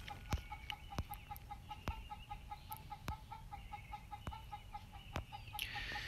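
Faint steady run of short, evenly spaced clucking calls, about five a second, like a hen clucking, with a light click roughly once a second.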